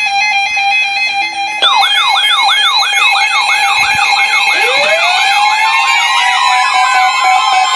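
Sirens sounding together. After a second and a half of steady tones, a fast yelp starts, sweeping about three times a second. A few seconds later a wail rises in pitch and holds, overlapping it.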